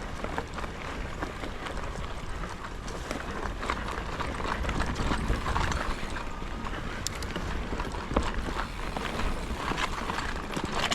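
Mountain bike ridden along a dirt forest trail: tyres crunching over the ground and the bike rattling in irregular clicks and knocks, over a steady low rumble of wind noise.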